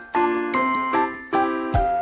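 Background music: plucked or struck pitched notes in a steady bouncy rhythm with a low beat.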